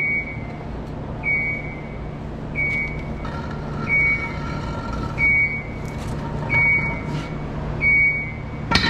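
A forklift's warning beeper sounding a single steady-pitched beep about every 1.3 seconds, over a steady low hum. A loud sharp knock comes near the end.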